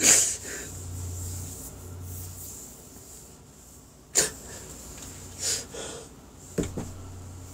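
A man crying: shaky sobbing breaths and sniffs, the loudest sob about four seconds in.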